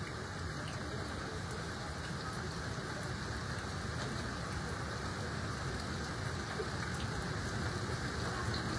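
Steady rain, an even rushing noise with no separate events that grows slightly louder.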